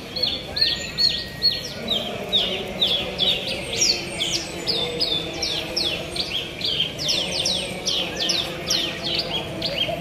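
Several caged Javan bushlarks (branjangan) singing at once in a contest: a dense, unbroken stream of short, high, falling notes, several a second and overlapping. A faint murmur of crowd voices lies underneath.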